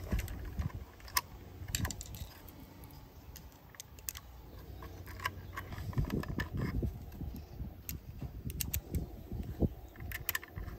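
Scattered small clicks and taps as wire ends and a screwdriver are handled at an electric pump motor's terminal board, coming at irregular intervals.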